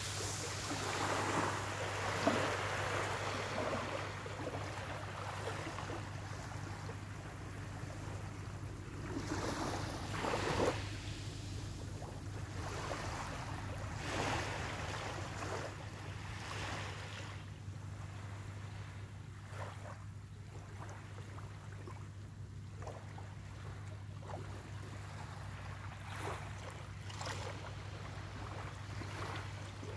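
Small waves lapping and washing up onto a sandy shore, swelling and fading in gentle surges every several seconds, over a steady low hum.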